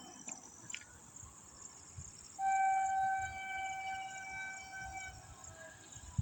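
Vande Bharat Express train horn sounding one long, steady blast of about three seconds, starting a couple of seconds in and then fading. A faint high-pitched steady whine sits in the background.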